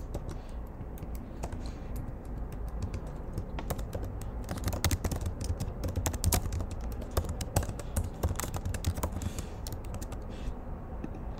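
Typing on a computer keyboard: scattered keystrokes at first, then a quick run of typing from about four seconds in, slowing again near the end.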